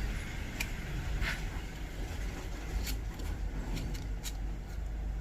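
Light clicks and taps of plastic parts being handled and pushed together as a soldering-iron stand is assembled, a few spread through, over a steady low background rumble.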